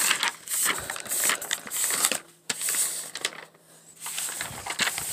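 Paper pages of a hand-drawn comic book rustling as they are flipped by hand, a string of irregular papery rustles and flaps.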